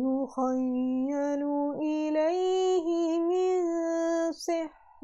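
A woman reciting the Quran in a slow, melodic chant, drawing out long held notes, with a brief break near the end.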